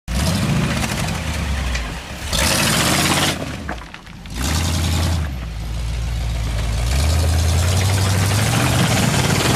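Rock buggy's engine revving hard in surges under load on a steep slope, loudest about two and a half and four and a half seconds in, then a long, rising rev from about seven seconds.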